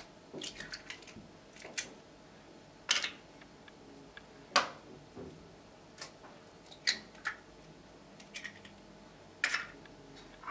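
Two eggs being cracked open: a scattering of sharp taps and small clicks of breaking shell, the strongest about three, four and a half and seven seconds in.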